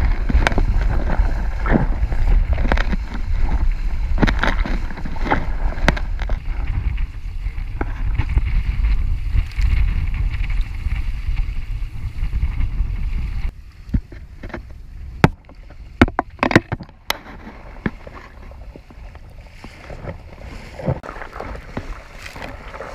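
Water rushing and splashing along the hull of a small wooden sailboat under sail, with heavy wind buffeting on the microphone. About halfway through the wind noise drops off abruptly, and a few sharp knocks follow, then quieter water noise.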